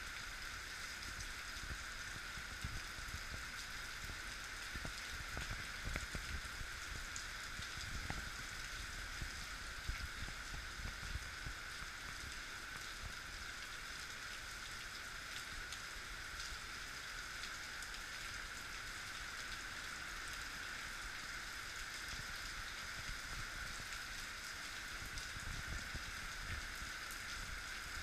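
Steady hiss of a heavy downpour, with irregular low rumbles underneath.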